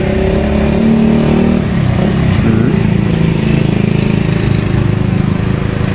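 A motorcycle engine running steadily at idle.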